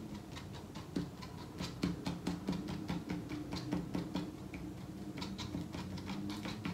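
Glue bottle's applicator tip tapped and rubbed over cardstock, spreading glue in a quick run of small taps and scratches, about four a second.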